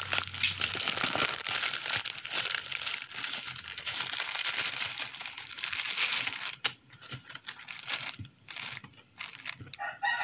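Plastic wrapper of a Lucky Me instant noodle pack crinkling as it is handled to take out the seasoning sachets. The crinkling runs dense for about six seconds, then breaks into a few scattered crinkles.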